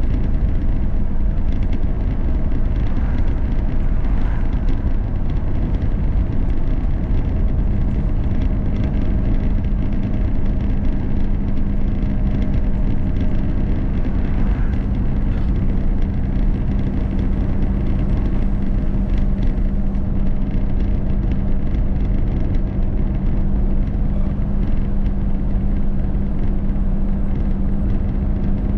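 A vehicle cruising on an open highway: steady engine and road noise, with a steady low hum setting in about seven seconds in.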